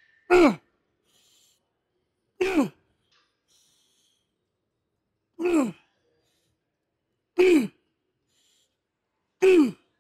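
A man grunting with effort on each rep of a leg set: five short grunts about two seconds apart, each falling sharply in pitch, with faint quick breaths between them.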